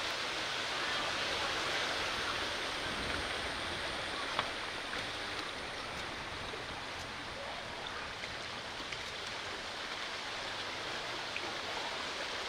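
Steady rush of moving floodwater, with a few faint clicks.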